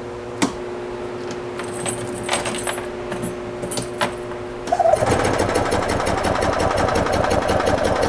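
A few light clicks, then about five seconds in the 2002 EZGO TXT's gas twin-cylinder engine starts and runs with a fast, even mechanical beat, firing on only one cylinder.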